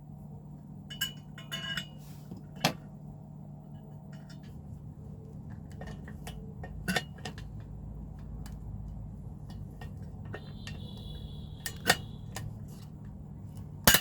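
Sharp metallic clicks and clinks of small metal parts and hand tools being handled and set down, a handful of separate knocks over a steady low hum.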